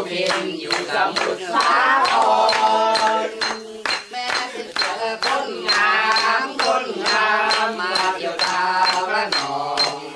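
Male voices singing a song together, with a steady fast beat of hand claps and clinks.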